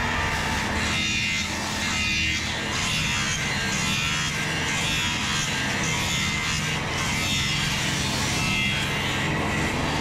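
Electric disc sander running steadily with a constant hum, with background music over it.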